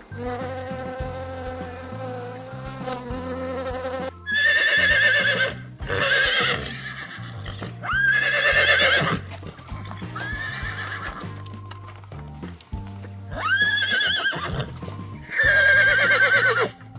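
Horse whinnying six times, loud shaky calls about a second long each, after a steady buzz in the first four seconds. Background music with a repeating bass line runs underneath.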